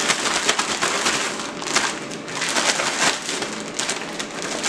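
A bag holding chicken halves in seasoned flour being shaken, rustling and crinkling in quick, uneven strokes as the flour coats the chicken.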